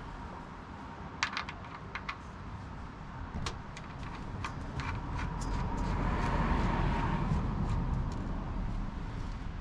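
Irregular metallic clicks and clinks of a 24mm wrench working on the rear differential's fill plug as it is tightened, over a steady low background rumble.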